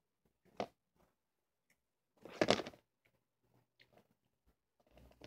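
Sticky homemade slime being handled and pulled apart by hand: a short soft squish, then a louder squelch of under a second about halfway through, with faint small ticks between. A low steady hum comes in near the end.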